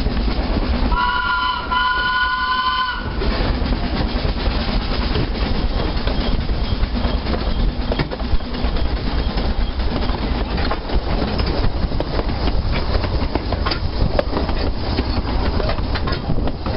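Narrow-gauge train running, heard from an open carriage: a steady low rumble with clicking of the wheels over the rail joints. About a second in, the locomotive sounds two short warning blasts, each a chord of several notes.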